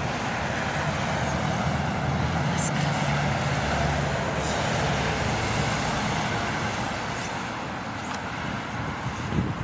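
Wind buffeting the microphone: a steady, dense rushing noise.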